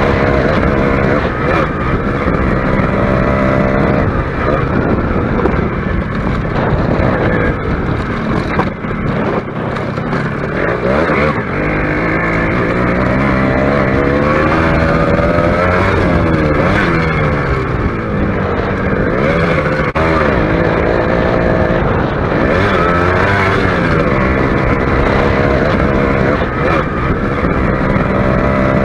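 Suzuki Shogun's single-cylinder two-stroke engine heard on board while riding a dirt track, its pitch rising and falling repeatedly as the throttle is opened and closed.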